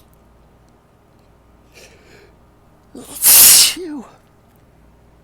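A person sneezes once, hard: a short breathy intake about two seconds in, then a loud sneeze about a second later that ends in a brief falling voiced tail. It is one sneeze of an allergic sneezing fit brought on by pollen.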